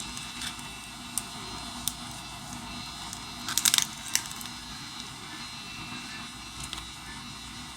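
Scattered small clicks and crackles of a pry tool working a cracked phone screen and its adhesive off the frame, with a quick cluster of clicks about three and a half seconds in.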